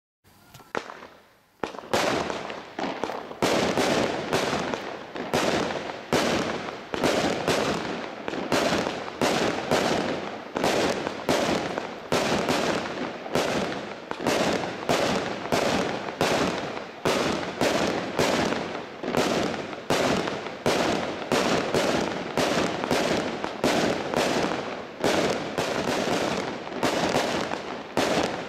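Firework cake, a 72-shot Estalella Batería Lion, firing in a steady sequence of shell launches and bursts at about two a second, starting about two seconds in. Each burst trails into crackling from its cracker stars.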